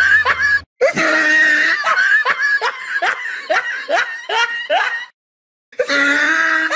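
An elderly man laughing hard: a run of short laugh pulses, each falling in pitch, about three a second. The laughter breaks off briefly about five seconds in.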